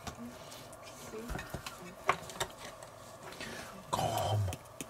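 A few light clicks and knocks of kitchen handling: a spice container and raw chicken drumsticks in a stainless steel bowl, spaced irregularly about a second apart.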